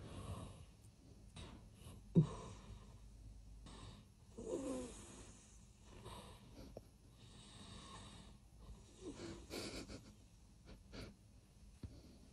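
A man snoring in his sleep: irregular soft snores and snorts with quiet stretches between them, and a sharp click about two seconds in.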